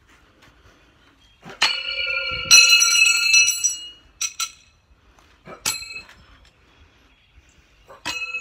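Steel throwing knives clanging as they strike a tree, about five sharp metallic hits each followed by a high ringing that dies away. The two loudest, with the longest ringing, come close together about one and a half to two and a half seconds in.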